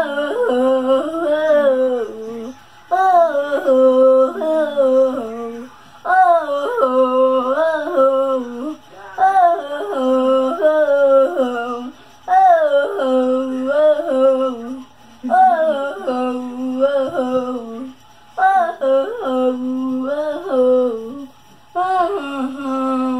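A single voice humming a tune without words, in repeated melodic phrases of about two to three seconds with short breaks between them.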